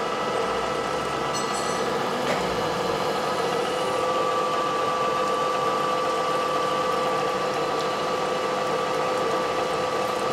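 Metal lathe running and cutting a new hinge-pin barrel, a long curl of swarf coming off the work. A steady hum with a constant whine from the machine.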